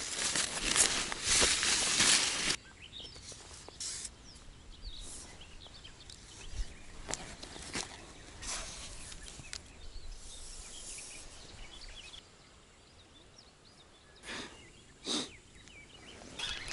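Fishing tackle being handled: a loud fabric rustle as the feeder rod's cloth cover is pulled off, stopping abruptly after a couple of seconds. Then scattered quieter clicks and rustles of gear, with birds chirping.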